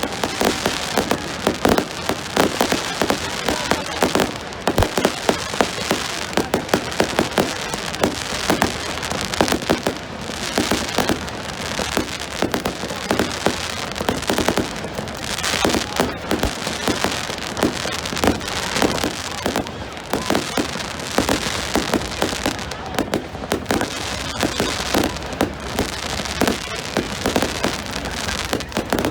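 Fireworks going off continuously: a dense crackling made of many rapid sharp pops, with louder bangs standing out every second or so.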